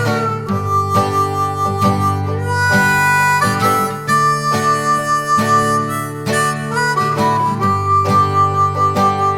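Background music: harmonica melody over strummed acoustic guitar.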